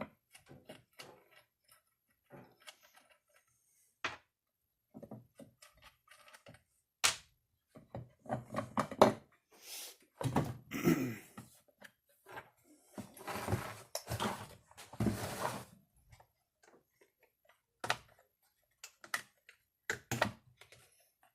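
Hand tools and chainsaw parts handled on a workbench during disassembly: scattered clicks and knocks, with a few longer stretches of scraping and rattling about halfway through.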